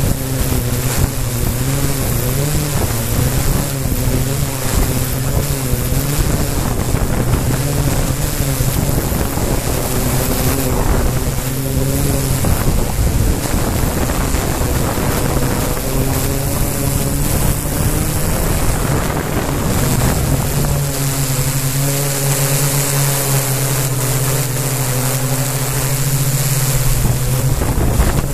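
Quadcopter drone's motors and propellers humming steadily as it hovers and drifts, heard from its onboard camera, the pitch wavering with throttle, over wind noise on the microphone.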